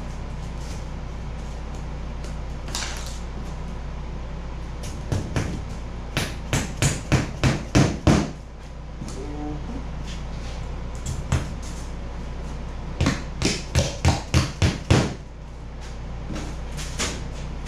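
Mallet blows tapping a foam-board gunwale strip down onto a foam kayak hull: two runs of quick knocks, about three a second, each run growing louder, some seconds apart.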